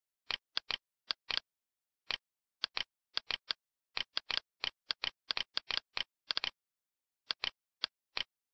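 Mouse and keyboard clicks at a computer, short and irregular, often in quick pairs, with a gap of about a second two-thirds of the way through.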